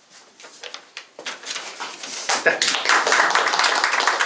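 Small audience applauding: a few scattered claps at first, thickening into steady applause about two seconds in.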